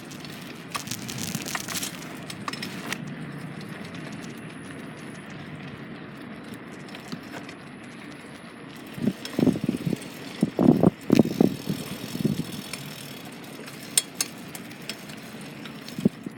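Bicycle being ridden with the microphone on board: a steady rumble of wind and tyres, with scattered clicks and rattles and a cluster of loud knocks and buffets about nine to twelve seconds in.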